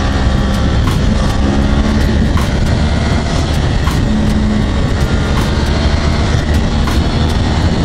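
A 2011 Yamaha R1's crossplane inline-four engine running steadily as the sportbike is ridden at speed, mixed with a steady rush of wind.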